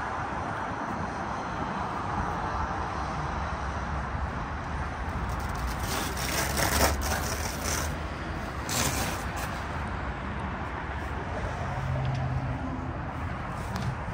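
Steady outdoor background noise, a low rumble and hiss like distant road traffic, with brief rustling about six and nine seconds in.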